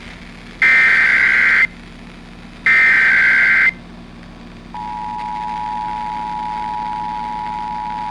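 Emergency Alert System SAME header: the second and third of three one-second bursts of screechy data tones, about two seconds apart, opening a coordinated monthly test. About 4.7 seconds in, the steady two-tone EAS attention signal starts and holds on past the end.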